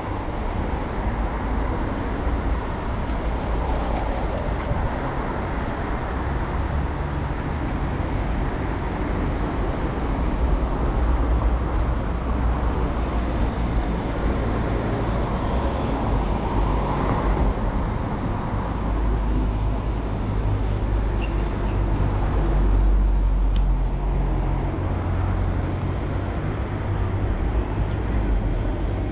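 City street traffic: cars passing on a road, with a steady low rumble of traffic noise that swells now and then.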